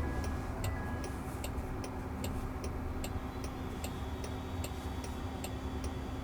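Car's turn-signal indicator ticking steadily in the cabin over low road rumble during a left turn.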